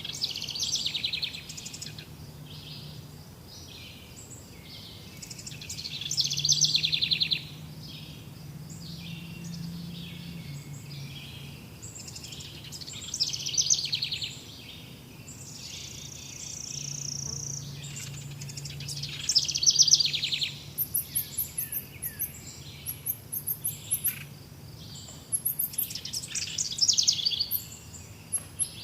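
Several wild songbirds singing in a forest: loud song phrases come every few seconds, and in the second half a very high, thin, fast trill repeats again and again.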